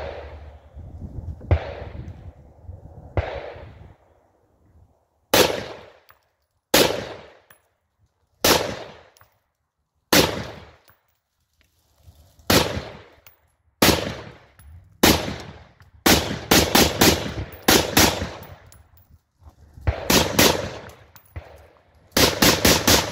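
Blackout Defense Quantum MK2 AR-15 rifle with a 13.9-inch barrel firing semi-automatic: single shots one to two seconds apart, then quicker strings of several shots in rapid succession in the second half. Each crack trails off in echo.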